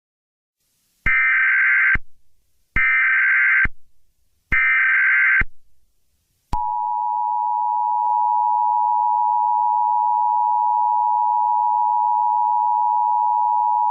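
Emergency Alert System data header: three buzzy digital bursts about a second long each, followed about six and a half seconds in by the steady, piercing two-tone EAS attention signal.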